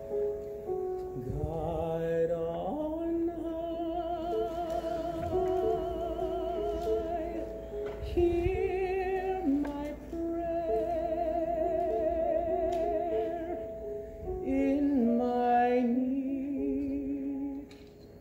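Live instrumental introduction to a slow piano ballad: piano notes under a sustained melody line with wide vibrato, the music dipping briefly near the end.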